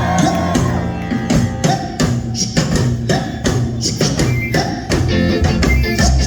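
Live ska band playing an instrumental passage: a drum kit beating a steady rhythm over bass and guitar, with no vocals.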